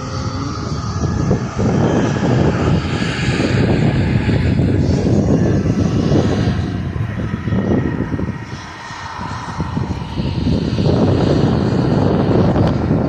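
Embraer E2 jet airliner's geared turbofan engines running, mixed with wind gusting hard on the microphone, the noise swelling and dipping unevenly.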